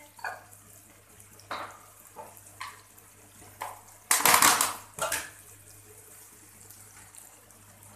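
Wooden spatula stirring and scraping in an aluminium kadhai of frying masala: a few short scrapes, then one longer, louder scrape about four seconds in and a last one just after.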